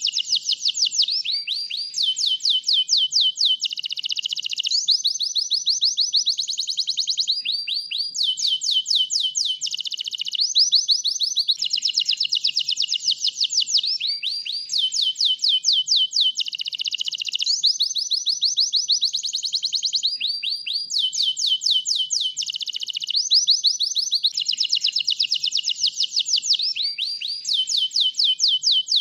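Domestic canary singing a continuous, energetic song of fast trills, each trill a rapid run of the same high note, switching to a new trill every second or two.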